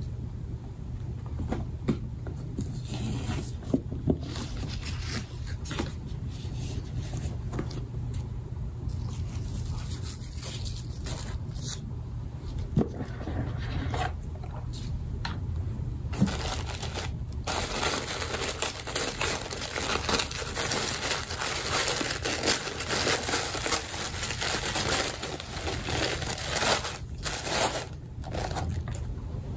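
Handling and opening a cardboard gift box: the lid scraping and tapping, then tissue paper rustling and crinkling more loudly from about halfway through as the product is lifted out.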